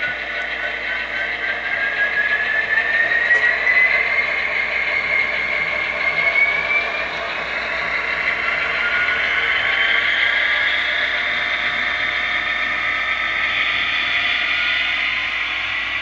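Sound decoder in an HO-scale SD70ACE model playing a diesel locomotive engine sound through its small onboard speaker. A whine rises in pitch over the first seven seconds, then a second one rises from about eight to ten seconds, as the engine sound throttles up.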